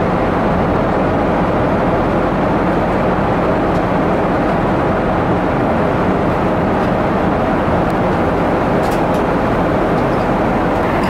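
Steady loud roar of a Boeing 777's Pratt & Whitney jet engines with airframe rumble, heard from inside the passenger cabin.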